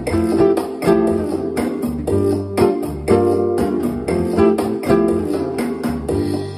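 Ovation 1773AX nylon-string acoustic-electric guitar strumming chords in a steady rhythm, played through a Roland Cube Street EX amplifier.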